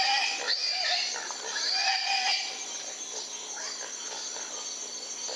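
Feral hogs squealing in loud, high, wavering calls for about the first two and a half seconds, then fainter scattered squeals and grunts. A steady trill of crickets runs underneath.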